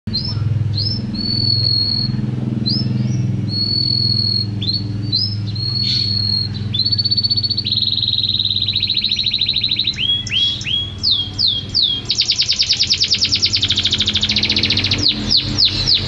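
Domestic canary singing: a run of short whistled notes, then rapid trills, with a very fast rolling trill in the second half and a string of quick falling sweeps near the end. A low steady hum sits beneath the song.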